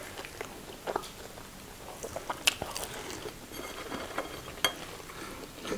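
Quiet eating sounds at a table: soft chewing of food with a few short, sharp clicks scattered through, loudest about two and a half seconds in.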